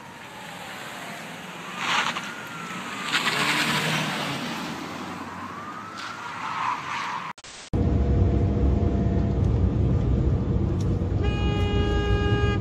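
An emergency vehicle siren wails slowly up and down. After a sudden cut, loud, steady engine and road rumble is heard inside a moving car, and a car horn sounds and is held for over a second near the end.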